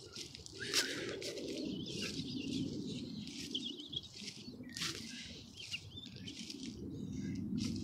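Irregular bursts of rustling and flapping over a low rumble of handling and movement.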